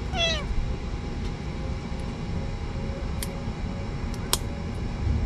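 A half-month-old kitten gives one short, falling meow at the start, over a steady low rumble. A few sharp clicks follow later.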